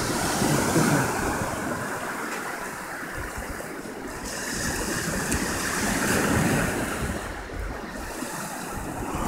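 Ocean surf washing up the beach, its rush of noise swelling about a second in and again past the middle, with wind rumbling on the microphone.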